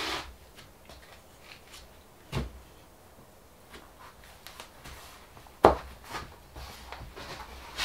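Several knocks and taps as a white floor strip is pushed and pressed into a gap in a laminate floor, to click it into place; the loudest is a sharp knock about two-thirds of the way through.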